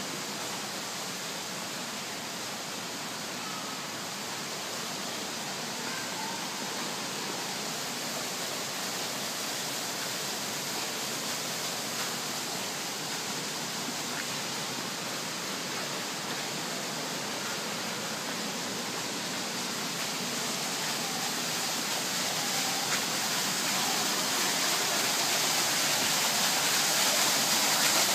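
Steady rush of water from an indoor waterfall, growing louder over the last several seconds.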